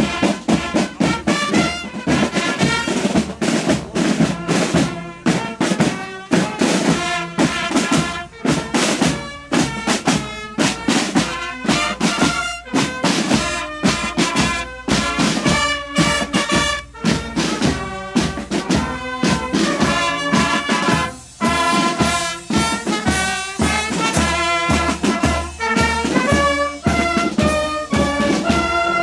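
Marching band playing a march as it passes: trumpets, trombones and sousaphone carry the tune over a steady beat of snare drums and bass drum.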